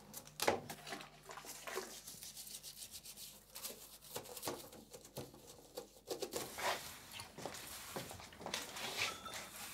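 Faint, irregular brushing and rubbing strokes from household cleaning, with a broom sweeping the floor near the end.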